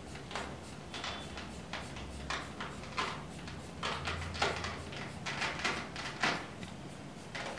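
Handling of a blood pressure cuff and its tubing on the arm: a string of short, irregular rustling and scraping sounds, with a faint low hum coming and going.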